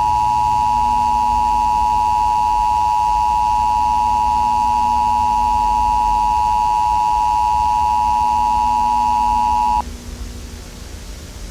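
Emergency Alert System attention signal: the steady two-note 853/960 Hz tone held for about ten seconds, cutting off suddenly near the end and leaving a faint hiss.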